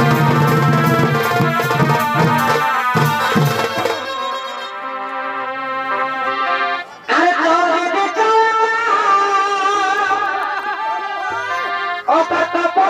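Chhau dance music: drums beat under a reed instrument's melody. The drumming stops about four seconds in, leaving the reed instrument playing a wavering melody, which breaks off briefly about seven seconds in.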